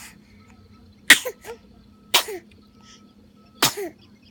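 A two-month-old baby sneezing three times, a second or so apart, each sharp sneeze followed by a short, falling squeak of her voice.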